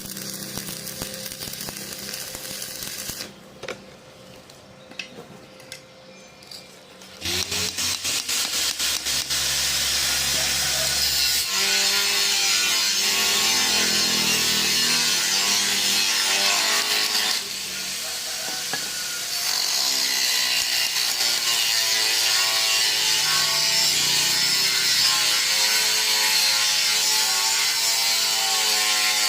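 Electric welding arc crackling and hissing steadily, starting about seven seconds in, with a brief break partway through.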